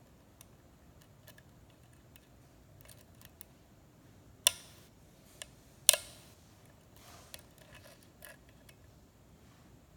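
Lock pick and tension wrench working the pins of a six-pin Schlage KIK pin-tumbler cylinder during single-pin picking: scattered faint metallic ticks and scrapes, with two sharper clicks around the middle.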